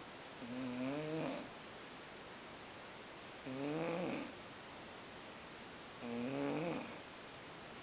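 Snoring in a sleeper's steady rhythm: three drawn-out snores, each with a pitch that rises, about two and a half seconds apart.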